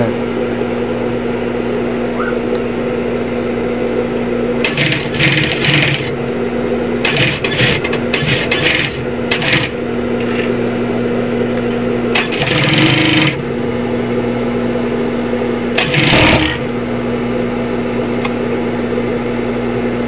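Steady electric hum of an industrial sewing machine's motor running while the machine sits idle, with several short bursts of rustling as the nylon backpack is handled and pushed under the presser foot, the last ending in a dull thump.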